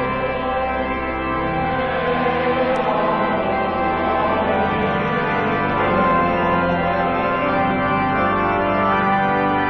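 Organ music playing slow, sustained chords.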